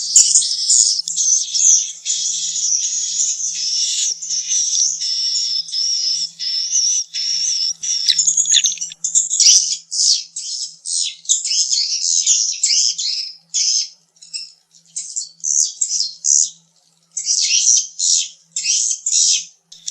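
Swiftlet calls: a dense, continuous high-pitched twittering for about the first half, then breaking into short rapid chirp bursts with brief gaps between them. It is the kind of swiftlet call track played as a lure sound in swiftlet nest houses.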